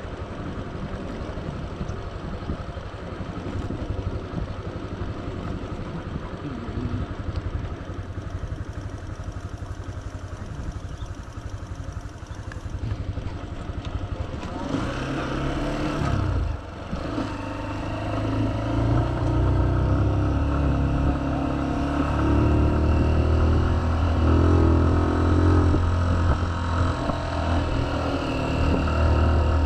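Motorbike engine running while being ridden over a rough dirt track, with rattling and wind rumble on the microphone in the first half. Past the middle the engine note briefly dips, then runs louder and steadier.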